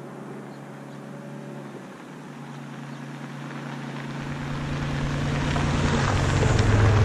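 Third-generation Toyota 4Runner driving up a gravel dirt track and passing close by: a steady engine hum with tyre noise on the gravel. It grows steadily louder, and a deep rumble comes in about four seconds in as the truck draws near.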